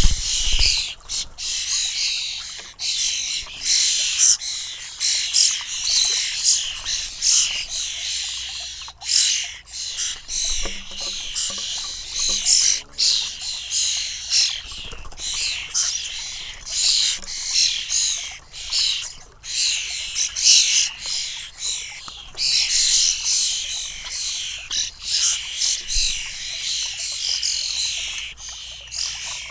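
A flock of European starling fledglings calling non-stop, a dense chorus of high, raspy begging calls that ebbs and swells, with scattered short clicks.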